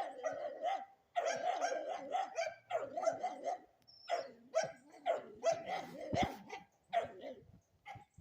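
A dog barking over and over: rapid runs of barks in the first few seconds, then spaced single barks.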